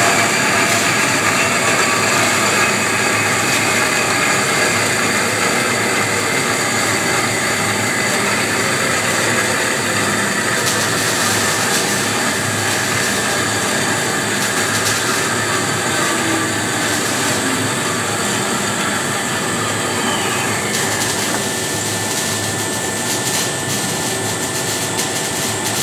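Hyd-Mech S-20 Series III horizontal band saw cutting through 2-inch schedule 80 steel pipe under coolant. It makes a steady machine noise with a whine that slowly drops in pitch as the blade feeds down through the pipe.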